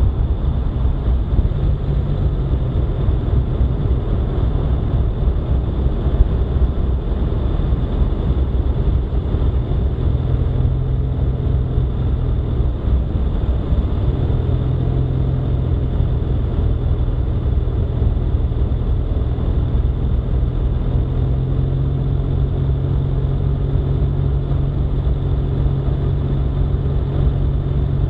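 Vehicle driving steadily at road speed: a continuous low drone and rumble of engine, tyres and wind, with a hum whose pitch shifts slightly about ten and fourteen seconds in.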